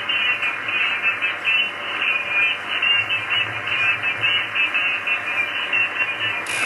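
Audio from a 10 m amateur radio receiver between calls: steady band hiss limited to a narrow, telephone-like range, with warbling fragments of weak, unintelligible signals. A short click comes near the end.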